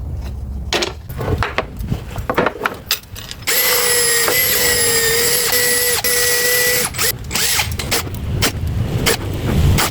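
A small power tool's motor runs with a steady whine for about three seconds in the middle, with scattered knocks and clatter of wood being handled before and after it.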